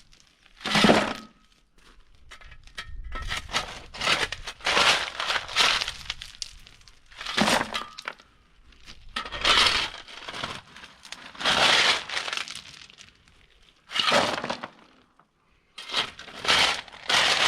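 Crushed-stone ballast being moved and spread, the loose stones clattering in a run of short bursts roughly every two seconds.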